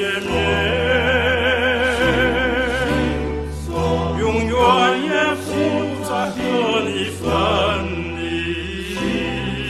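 A song: a singer's voice with strong vibrato over accompaniment with held bass notes, the phrases breaking off briefly twice.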